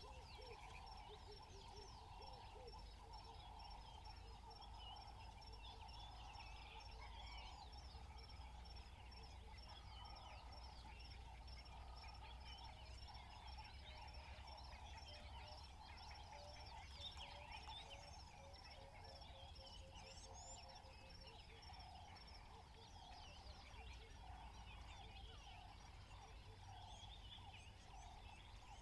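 Faint natural savannah soundscape: many birds calling and chirping over one another, with a steady, rapid high pulsing that stops about three-quarters of the way in.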